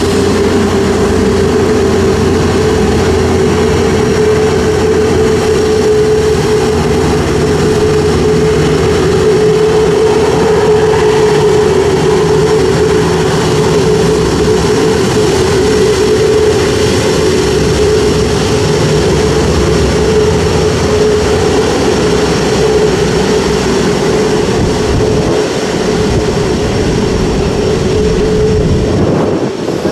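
Airbus A330neo's Rolls-Royce Trent 7000 turbofans running at taxi power as the airliner rolls past: a steady jet drone with one held mid-pitched tone over a low rumble.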